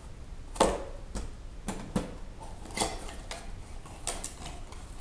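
Small cardboard parts box and its hardware being handled on a workbench: irregular clicks, knocks and light rustles as the box is opened and parts shift inside.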